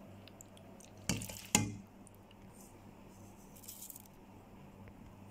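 Raw boneless chicken pieces tipped off a plate into a ceramic bowl, landing with two wet thuds about a second in, half a second apart. Near four seconds there is a brief faint rustle as chili flakes are sprinkled over the chicken.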